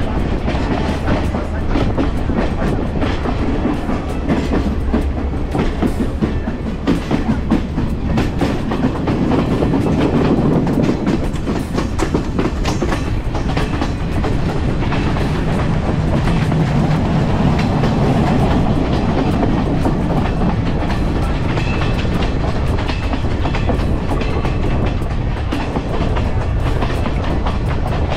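Passenger train running along the track, with a steady rumble and wheels clattering over the rail joints in many sharp clicks. It cuts off suddenly at the very end.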